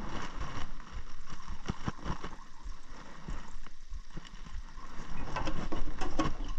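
Irregular clicks and knocks of a mixing cup and paint cans being handled while automotive sealer, hardener and reducer are poured and mixed, over a steady low rumble.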